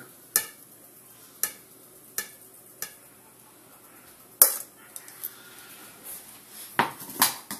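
Metal kitchen tongs clicking against a skillet and a ceramic plate as stir-fried vegetables are served: about seven separate sharp clinks, the loudest about four and a half seconds in and two more close together near the end.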